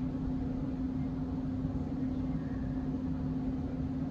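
Steady low machine hum with one constant pitched tone over a low rumble, unchanging throughout.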